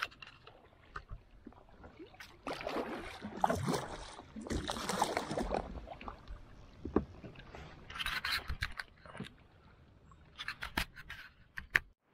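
Kayak paddling on calm water: a paddle blade swishing through the water in uneven strokes every second or two, with a few light knocks and scrapes of the paddle against the kayak hull.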